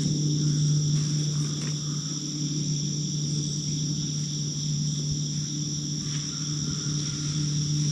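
Steady dawn chorus of crickets: a continuous high trilling with no breaks, over a steady low hum.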